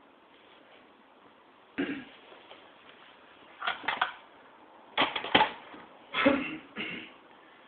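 Handling noises with the engine stopped: four clusters of short knocks and clatters, the loudest a little over 5 s in.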